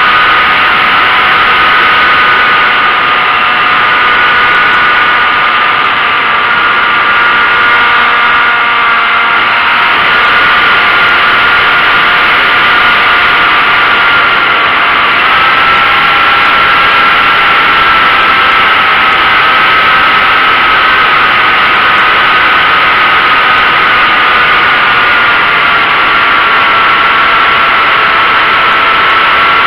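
A radio-controlled model airplane's motor and propeller running steadily at flight throttle, heard up close from a camera on the airframe: a high, steady whine over a rush of wind noise. The pitch steps up slightly about halfway through and wavers near the end as the throttle and airspeed change.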